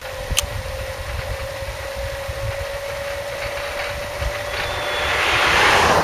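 Steady rumble of riding a bicycle on a paved road, with a constant hum that edges up in pitch. About five seconds in, an oncoming car's tyre and engine noise swells to the loudest point as it passes near the end.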